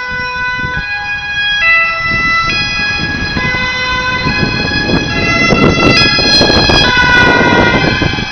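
Ambulance two-tone siren sounding on an urgent run, stepping between two pitches a little under once a second. The van's engine and tyre noise swell loud in the second half as it passes close by.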